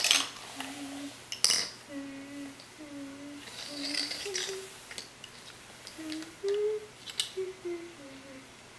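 A child humming a wandering, tuneless string of short notes, with a few sharp clicks of plastic Tinkertoy pieces being handled, loudest near the start and about a second and a half in.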